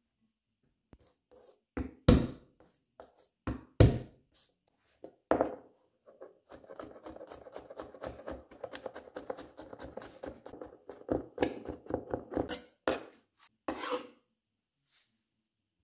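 Chef's knife chopping garlic on a plastic cutting board. A few single hard strikes, the loudest near the start, give way about six seconds in to several seconds of fast fine chopping, then a handful of slower strikes.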